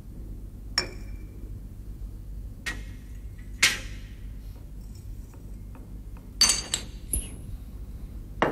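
Laboratory glassware clinking as flasks and test tubes are handled and set down on the bench: a handful of separate clinks and knocks, some briefly ringing, one about a second in, the loudest about three and a half seconds in, and a cluster near the end, over a low steady hum.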